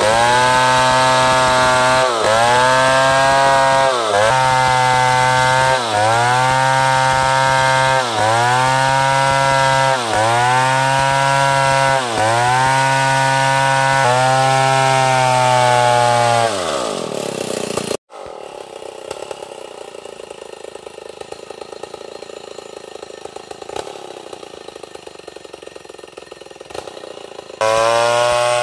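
Large two-stroke chainsaw running at full throttle through a log, its pitch dipping briefly and recovering about every two seconds, then winding down about 16 seconds in. A much quieter stretch of noise follows, and the saw is back at full speed near the end.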